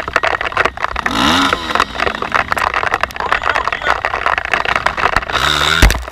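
Off-road trail motorcycle engine revving up and down over rough ground, once about a second in and again near the end. A heavy thump near the end is the loudest sound.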